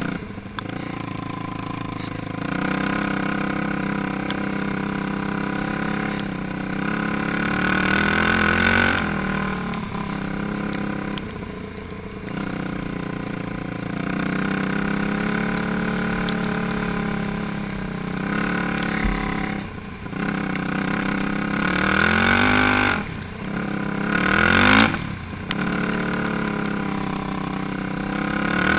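Yamaha YFZ450 quad's single-cylinder four-stroke engine under way, heard from the machine, revving up and easing off again and again. The pitch climbs several times, most clearly near the middle and near the end, and there are short breaks in the note at the throttle lifts and gear changes.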